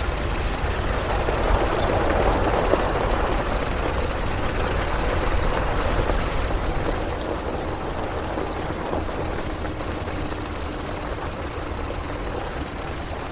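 Steady rumble of a vehicle on a gravel road, heard with the camera held out of the window: engine and tyre noise with wind on the microphone, easing a little about halfway through.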